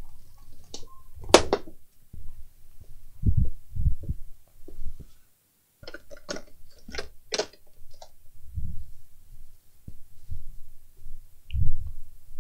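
Scattered knocks, clicks and low thumps as a person gets up from a workbench chair and moves about the room: a sharp click about a second in, a run of quick clicks in the middle and a few dull thumps.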